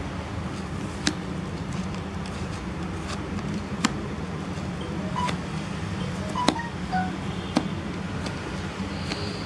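A few sharp clicks of a plastic toy knife knocking against a clear plastic tub as kinetic sand is cut, over a steady low hum.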